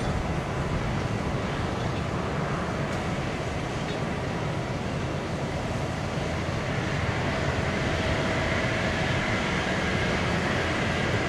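Steady rumble and hiss of a Boeing 777-300ER being pushed back by a tow tug, with a faint whine that grows a little stronger from about seven seconds in.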